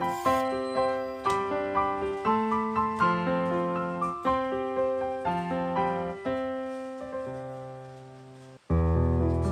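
Background piano music: a gentle melody of single notes, about two a second, that settles on a fading held chord, then after a brief drop-out a fuller passage with deep bass notes begins near the end.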